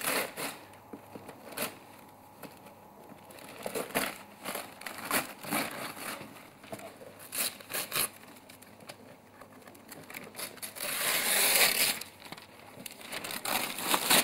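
Glossy wrapping paper being torn and crumpled off a cardboard box, in irregular rips and crinkles, with one long, loud tear a little before the end.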